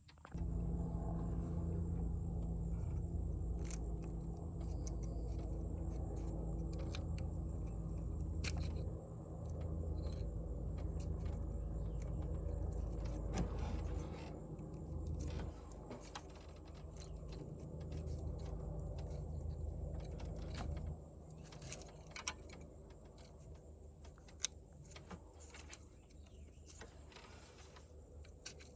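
A low, steady mechanical hum, like a motor or engine running, that drops away about two thirds of the way through, with scattered sharp clicks and clinks of hand tools and plastic parts being worked at the engine bay.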